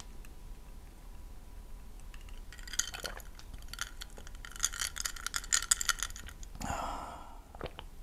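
Ice cubes clinking against the sides of a drinking glass as the drink is tilted and swirled, in two quick flurries of light, ringing clinks about three and five seconds in.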